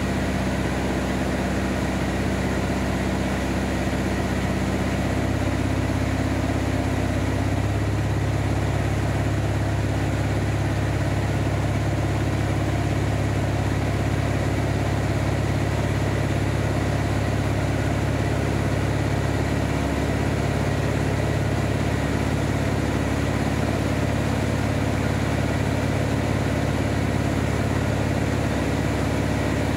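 Steady drone of a Van's RV-7A light aircraft's piston engine and propeller in cruise. The engine note shifts lower about five to seven seconds in, then holds steady.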